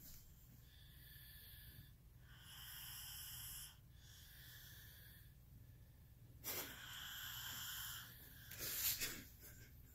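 Faint, slow breathing of a sleeping child, each breath swelling and fading over about a second and a half. Two short, louder sounds come near the end.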